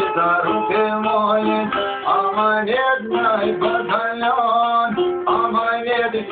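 Çifteli, a two-stringed long-necked Albanian lute, plucked in a quick run of notes with some bent pitches over a steadily held drone note. The playing pauses briefly about two seconds in and again near five seconds.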